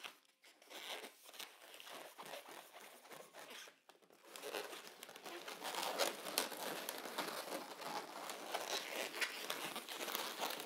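White 260 latex modelling balloons rubbing against each other and the hands in a dense, irregular crinkle as a bubble is twisted and folded into the figure. It is faint at first and grows louder about four seconds in.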